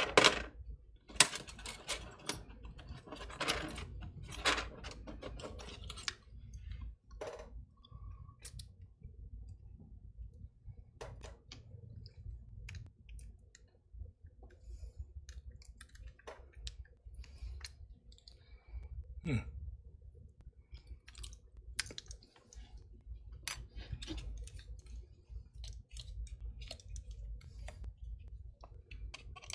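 Small metal clicks, taps and scrapes as a hand tool works at the stuck cylinder of a Master Lock 220 padlock to free it. A few louder clacks come in the first few seconds, then lighter irregular clicking.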